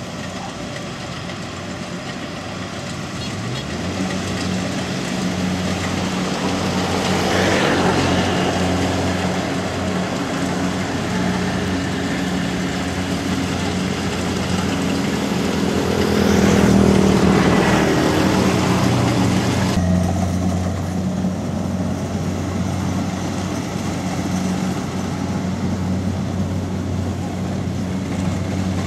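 Kubota DC-70 Plus combine harvester running steadily while harvesting rice, its diesel engine drone mixed with the clatter of the reel and threshing gear. It grows louder twice, about a quarter of the way in and again just past the middle, as the machine passes close.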